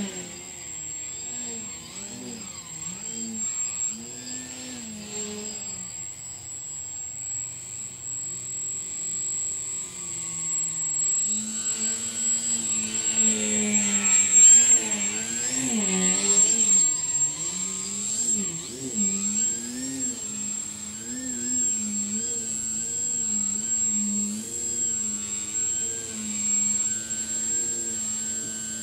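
Electric motor and propeller of a small RC aerobatic airplane, its pitch swinging up and down with the throttle as it manoeuvres. It is loudest around the middle as the plane passes close.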